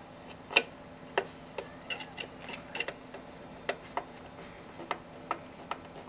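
Hand screwdriver turning a screw into a metal lamp housing: a dozen or so short, irregular clicks and ticks, the loudest about half a second in.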